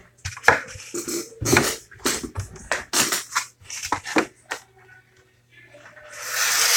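Makeup brushes being handled and set into a brush holder on a desk: a run of short knocks, taps and rustles. Near the end comes a longer rushing hiss that swells and fades.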